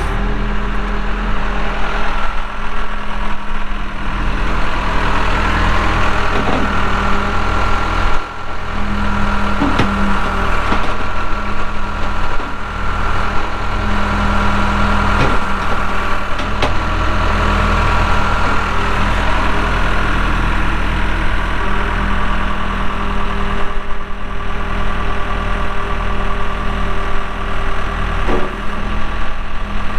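Cummins diesel engine of a 1998 Case 580L Series II backhoe running steadily as the machine is worked, with a steady whine over the engine and a few sharp knocks, the loudest about eight seconds in.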